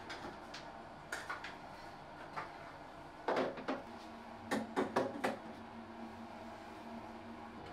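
Light knocks and clatters of square pump dispensers being handled and set down one by one on a bathtub ledge: a few small clicks early on, a louder group about three seconds in and several more knocks a second later. A faint steady hum runs underneath.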